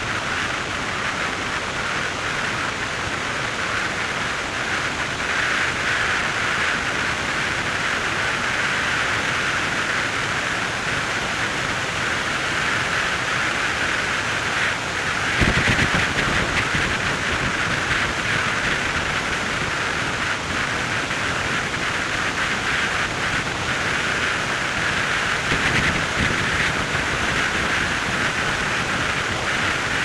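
Steady rush of wind noise from a car driving at speed along an open road. About halfway through the rush turns suddenly louder and deeper for a moment, with a smaller swell near the end.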